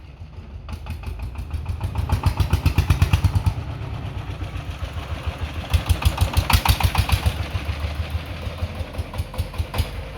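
Three-wheeled farm tractor's engine running with a rapid, even chugging that gets louder twice, as if throttled up, then settles back.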